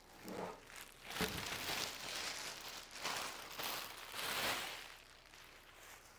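Thin clear plastic bag crinkling and rustling as it is pulled off a resin 3D printer and bunched up, with a dull thump about a second in.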